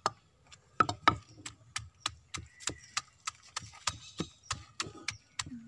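Long wooden pestle pounding lowi fruit with salt and chilli in a traditional wangediya mortar, beating in a steady rhythm of about three strokes a second from about a second in.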